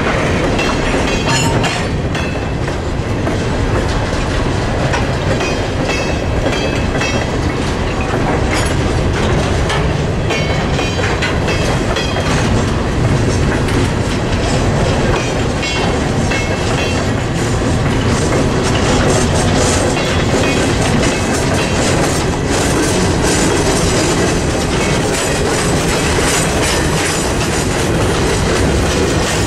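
Freight train of covered hopper cars and tank cars rolling past, wheels clacking over the rail joints in a steady, unbroken rumble.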